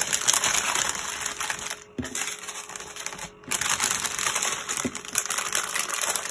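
Clear plastic packets of diamond painting drills crinkling as they are handled and folded, with two brief pauses, about two and about three and a half seconds in.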